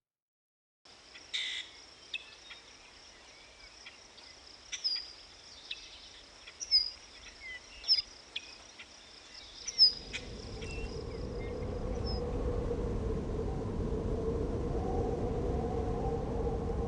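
Outdoor ambience of a steady high insect drone, like crickets, with a few short falling bird chirps and small clicks over it. From about ten seconds in, a low rumbling drone with a steady wavering hum rises and takes over as the insects fade.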